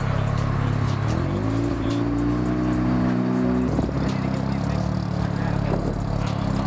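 Big-turbo Mazda RX-7 FD's rotary engine running low, then rising in pitch about a second in, holding the higher note for about two seconds and dropping off abruptly just before the 4-second mark back to a steady low run as the car pulls away.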